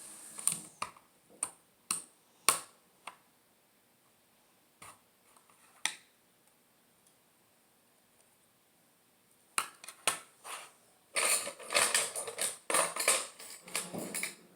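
Plastic Lego pieces clicking and clattering as they are handled and pressed together: a few sharp clicks over the first three seconds, two more around five and six seconds, then a dense run of clicks and rattling in the last few seconds.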